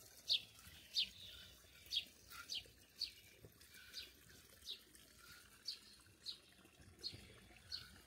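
A small bird calling outdoors: short, high, downward-sliding call notes repeated steadily, roughly one a second.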